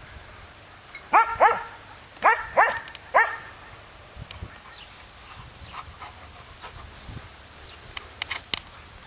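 A dog barking during tug-of-war play: five short, loud barks in about two seconds, coming as two pairs and then one. A few sharp clicks come near the end.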